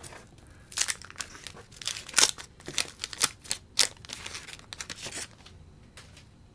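A 1989 Donruss wax-paper card pack being torn open and crinkled, a run of sharp papery crackles that stops about five seconds in.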